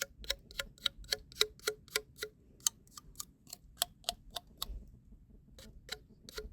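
Clock-like ticking: sharp dry ticks about four a second, breaking off for about a second past the middle and then resuming, over a faint low rumble.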